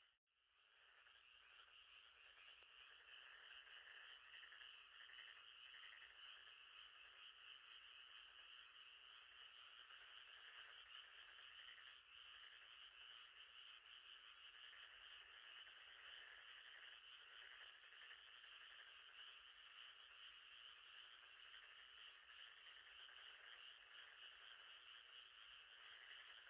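Faint, steady chorus of many frogs calling, a dense pulsing trill that briefly drops out at the very start and fades back in.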